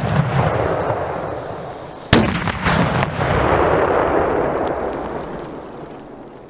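Large firework shell exploding on the ground: a sharp, loud bang about two seconds in, followed by a long rushing noise that slowly fades. At the start the rush from an earlier bang is still dying away.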